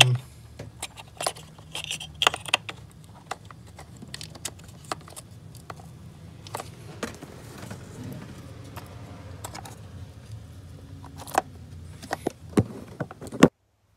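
Plastic electrical connector and wiring harness of a throttle sensor being handled and pushed back into place: scattered small clicks and rattles, with a sharper click near the end.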